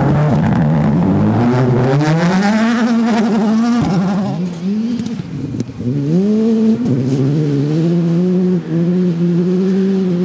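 World Rally Car turbocharged four-cylinder engines at full throttle. The engine note climbs steadily through the first few seconds, drops away sharply about four seconds in, then rises again and holds high with brief dips at the gearshifts.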